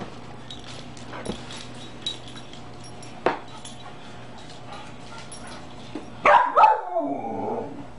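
A dog gives two quick yelps about six seconds in that trail into a short howl falling in pitch. A few sharp knocks come before it.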